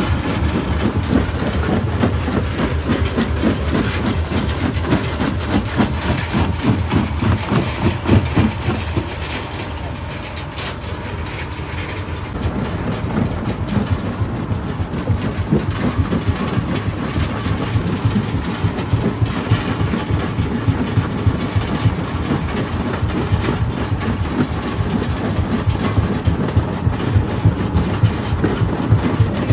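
Stone jaw crusher running under load, its jaws knocking and grinding as they break rock, a continuous dense clatter of impacts. It eases briefly about ten seconds in, then picks up again.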